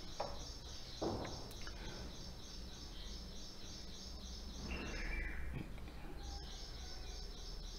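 Rhythmic high-pitched chirping, several chirps a second, over a low steady hum, breaking off briefly near the end; a soft knock about a second in.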